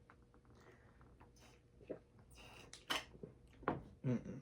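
Scattered soft clicks, knocks and rustles of snacks being handled and eaten, with several louder knocks in the second half.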